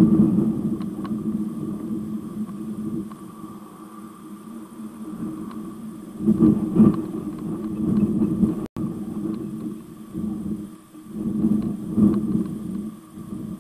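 A steady low mechanical hum with a fainter higher tone above it, swelling and fading in loudness several times, with a split-second cut-out about nine seconds in.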